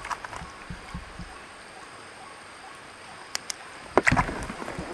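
Gill net being hauled in and handled over the side of a small boat: faint ticks and rustles, two sharp clicks a little past three seconds, then a sudden loud thump about four seconds in.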